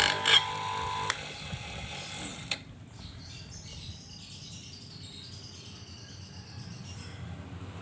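A simple lathe's small motor runs with a steady whine, then cuts off about a second in. A few clicks and quieter creaking mechanical noise follow.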